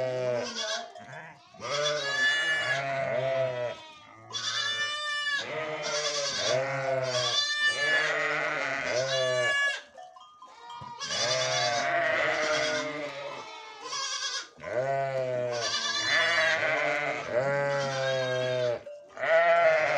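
Flock of sheep bleating, many overlapping wavering calls following one another almost without pause, with a few short lulls.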